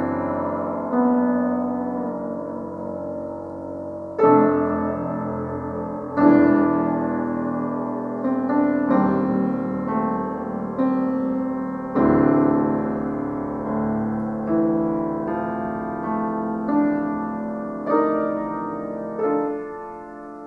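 Solo grand piano (an Estonia) playing slow chords in a classical piece, struck every one to two seconds and each left to ring and fade. The last chord dies away near the end.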